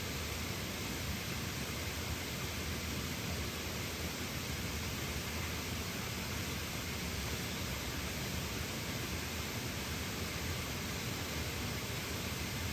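Small waterfall, water rushing steadily in an even hiss.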